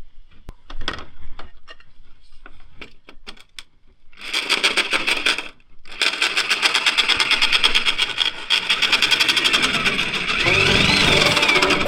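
A few scattered knocks and clicks, then about four seconds in a power tool starts running in rapid, even strokes. It pauses briefly and picks up again.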